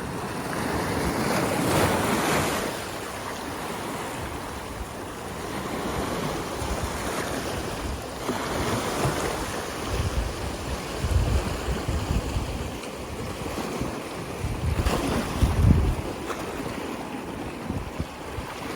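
Ocean surf breaking on the shore, several waves swelling and washing in, the loudest near the start. Wind rumbles on the microphone.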